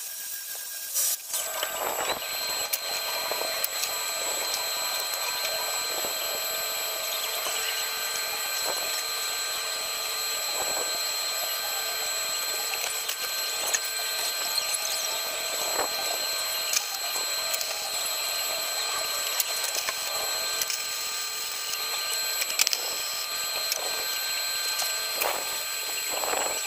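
Metalworking power tools on steel plate: a steady high-pitched machine whine starting about two seconds in, with scattered clicks and knocks.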